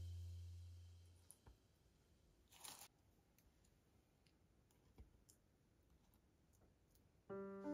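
Near silence with a few faint clicks and taps of toothpicks and salami rolls being handled on a wooden cutting board, and one short rustle about two and a half seconds in. Background music fades out at the start, and piano music comes back in near the end.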